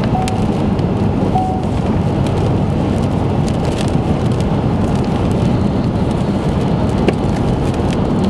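Rain pelting a vehicle over a steady low rumble of road and storm noise, with scattered sharp ticks of drops striking. Two short electronic beeps sound in the first second and a half.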